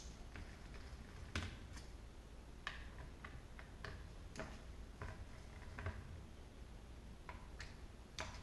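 A dozen or so irregular light clicks and taps of a screwdriver and small tools against a metal airsoft gearbox shell as its shell screws are backed out by hand.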